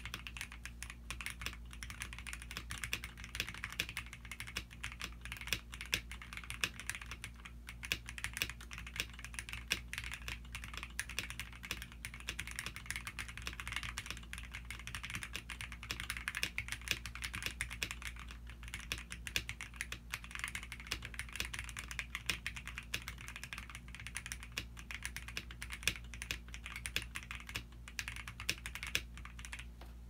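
Continuous fast typing on a custom MW65/Cheap68 r2 65% mechanical keyboard with lubed, filmed Gateron Black Ink v2 linear switches, PBT Cherry-profile keycaps, plate foam and a tape mod: a dense, uneven stream of key presses that stops just before the end.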